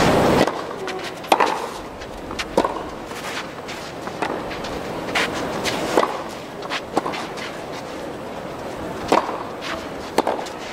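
Tennis rally: sharp pops of racket strings striking the ball. The serve lands about a second in, then the two players trade shots, about eight hits spaced a second or so apart.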